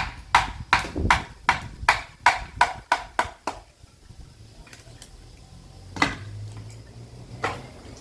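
Sledgehammer striking a steel chisel to split caviúna firewood: about ten quick blows, two to three a second, then a pause, a single hard blow about six seconds in and a weaker one near the end.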